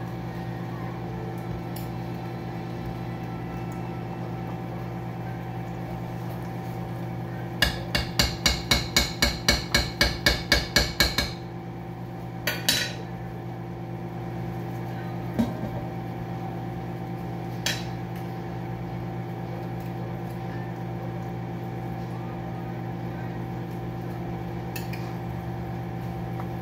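A quick, evenly spaced run of about fourteen sharp clicks, roughly four a second, then a few single clicks, over a steady hum.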